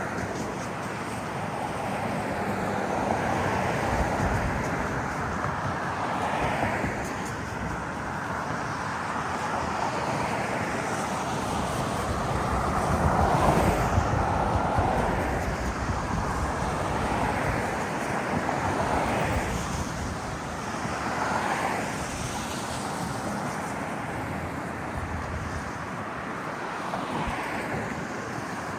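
City traffic: several vehicles pass one after another, each swelling and fading over a few seconds, the loudest about halfway through, over a steady rush of background noise.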